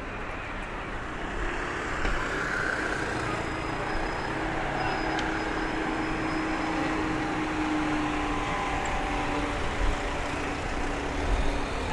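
City street traffic: cars passing on the road, a steady wash of engine and tyre noise with an engine hum. It grows louder about two seconds in.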